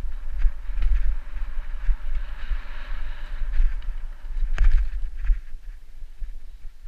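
Mountain bike riding down a dirt singletrack: wind rumbling on the microphone over tyre and frame rattle, with a rushing hiss for a couple of seconds early on and a sharp clack about two-thirds of the way through as the bike jolts over something.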